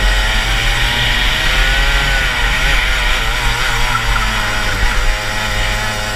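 Rotax Max 125cc single-cylinder two-stroke kart engine under load on track. Its revs hold, drop and waver through a corner in the middle, then climb again near the end as it pulls out. The uploader says the gearing, 72/12, was too long for this twisty track, so the kart came out of corners sluggishly. A low wind rumble sits on the microphone.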